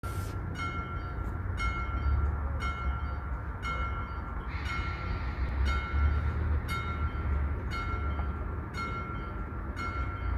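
Level-crossing warning bell ringing about once a second, each strike a clear tone that fades before the next, over a low rumble. It signals that the barriers are lowering for an approaching train.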